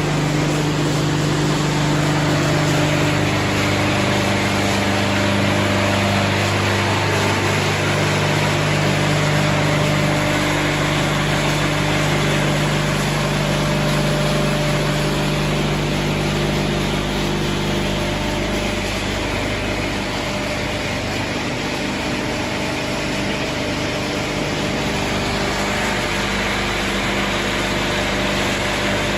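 Wood sawdust hammer mill running steadily: a continuous machine hum of several steady tones under a broad rushing noise, with one low tone dropping out about two-thirds of the way through.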